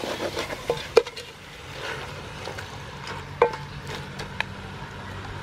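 Wooden spoon stirring chicken pieces in a large metal pot: wet scraping and shuffling with a few sharp knocks of the spoon against the pot, the loudest about a second in and another a little past the middle with a brief metallic ring.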